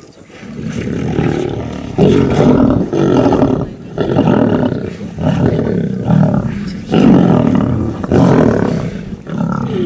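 Lions growling at a fresh warthog kill, the feeding squabble of a pride packed around the carcass. Loud, deep growls follow one another about once a second, building up over the first second.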